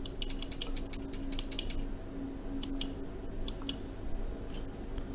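Computer keyboard typing: a quick run of key clicks over the first two seconds, then a few scattered clicks, over a low steady hum.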